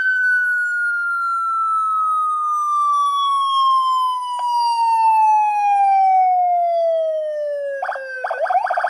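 Electronic motorcycle siren on a 20-watt speaker, a '113' police-style siren, sounding one slow falling wail that glides down in pitch over about eight seconds. Near the end it switches to a rapid pulsing warble.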